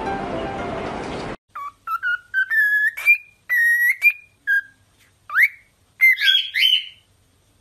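Background music cuts off about a second in, then a cockatiel whistles a string of short clear notes, several sliding up in pitch, ending in a louder warbling phrase.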